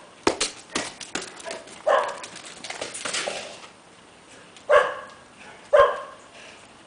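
A Dogue de Bordeaux giving three short barks, about two, five and six seconds in, mixed with scattered sharp clicks and a stretch of scuffling.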